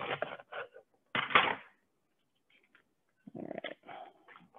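Kitchen knife cutting through a raw artichoke on a wooden cutting board: crunchy cuts and knocks of the blade on the board, the loudest a little over a second in, with a few shorter knocks near the end.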